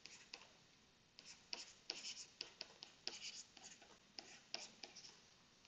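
Faint scratching and tapping of a stylus writing on a tablet screen, in short irregular strokes.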